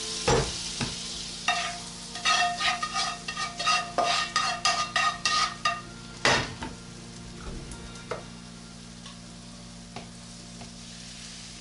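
Butter sizzling in a hot frying pan as it is worked around the pan, with a quick run of ringing metal taps and scrapes on the pan from about a second and a half in to about six seconds, and one louder knock just after.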